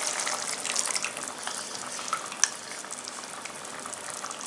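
Tomato sauce bubbling and sizzling in a nonstick pan, with fine pops, gradually quieter as a flour-and-water paste is poured in. A single light click about halfway through.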